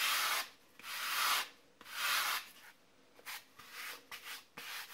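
Balsa wood block rubbed on 120-grit wet-and-dry sandpaper to round off its edges. Three long sanding strokes come in the first couple of seconds, then lighter, shorter scrapes.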